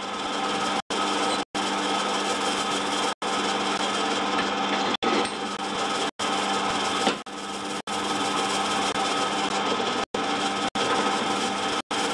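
Pillar drill running and drilling into a metal tube clamped in a machine vice: a steady motor hum with the rasp of the bit cutting. The sound cuts out for an instant several times.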